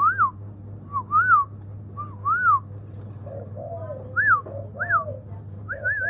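A spotted dove cooing in soft, low, rounded notes, over louder high whistled notes that each rise and fall, repeating about once a second.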